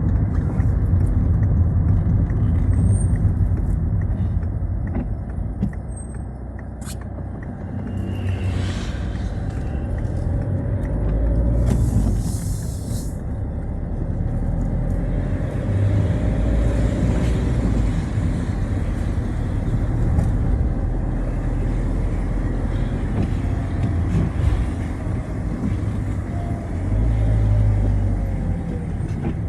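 Citroën Xsara driving on a wet road: a steady low engine and road rumble with tyre noise, swelling and easing with the throttle, and a brief hiss about twelve seconds in.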